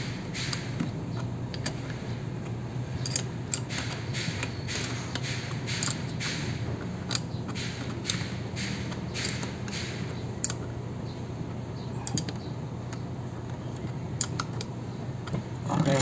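Ratcheting combination wrench clicking on the bolts of a brass pressure-washer pump head as they are tightened: irregular runs of short metallic clicks over a steady low hum.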